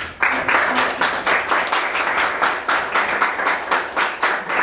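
A group of people applauding, the claps falling into a steady beat of about five a second.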